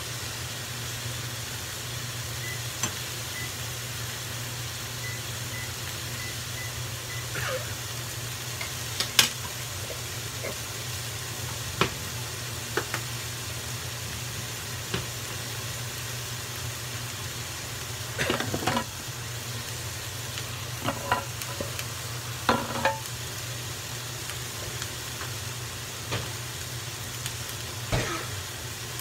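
Thin palomilla beef steak topped with jalapeño slices sizzling steadily in oil in a frying pan, over a low steady hum. A few short light clinks and knocks are scattered through it.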